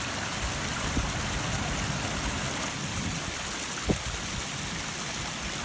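Steady rushing noise of wind and water on a beach, with a faint knock just under four seconds in.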